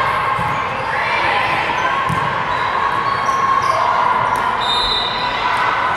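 Volleyball rally in a large gym: a few sharp ball hits ring out over a steady din of players' and spectators' voices.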